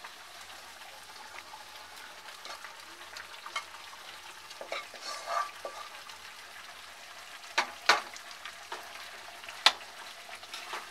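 Spatula scraping fried chicken pieces out of a nonstick pan into a simmering cream gravy, over a steady low sizzle. Three sharp clinks of the spatula against the pans come near the end.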